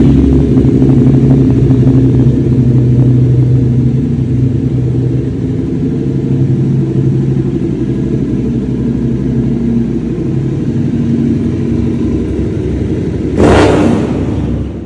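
2019 Suzuki SV650's 645 cc V-twin idling just after start-up, its idle easing slightly lower over the first few seconds. One quick throttle blip near the end.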